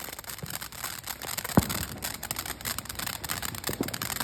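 Firework on the ground giving off a dense, rapid crackle of many tiny pops, with one louder bang about one and a half seconds in.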